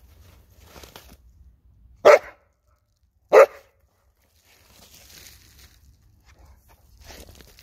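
Presa Canario puppy barking twice, about a second and a half apart, with faint scuffling in dirt and leaves around the barks.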